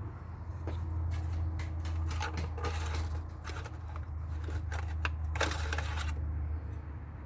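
Engine oil dipstick being drawn out of and slid back into its tube: a run of light metallic clicks and scrapes, with a louder rasp about five and a half seconds in. A steady low hum runs underneath.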